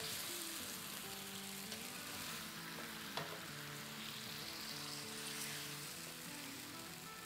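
Chicken drumsticks sizzling in a nonstick frying pan as they are sautéed in a thick masala of chilli garlic sauce, soy sauce and vinegar that is frying down towards dry. A silicone spatula stirs and turns the pieces throughout. Faint background music plays underneath.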